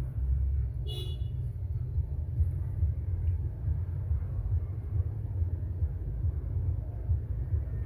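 Steady low rumble, with one short high-pitched squeak about a second in.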